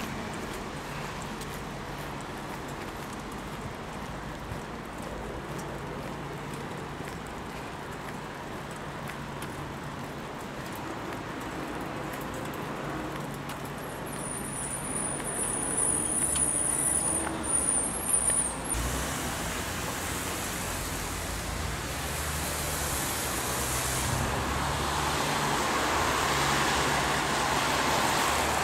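Road traffic passing on a wet street: a steady rush of cars and trucks, with a thin high squeal for a few seconds around the middle. It grows louder in the last third as vehicles pass close by.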